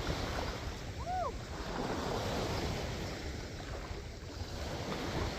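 Sea waves washing on the shore, with wind buffeting the microphone. About a second in, a brief pitched sound rises and falls.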